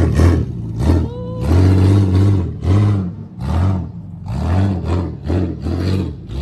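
A vehicle engine revved in a string of short blips, each rising and falling in pitch. About a second in there is a brief high rising squeal.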